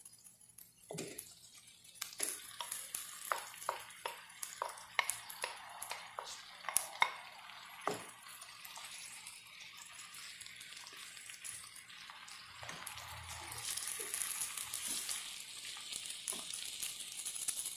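Ground beef frying with onions and garlic in a non-stick wok. A wooden spatula taps and scrapes against the pan in quick strokes through the first half, then a steady sizzle grows louder toward the end as the meat heats.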